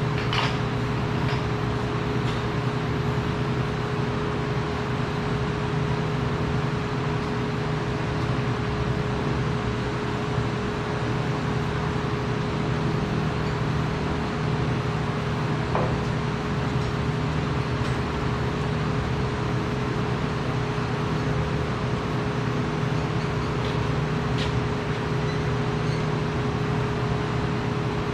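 Steady mechanical hum of running machinery, even in level, with a few faint clicks.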